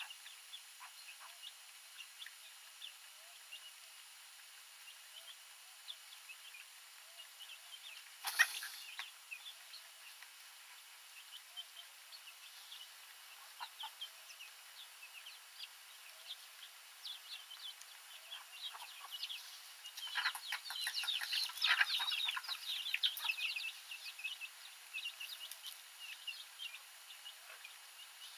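Chickens clucking and peeping in short, scattered calls, with a denser, louder flurry of calls from about twenty to twenty-four seconds in. A single sudden sharp sound comes about eight seconds in.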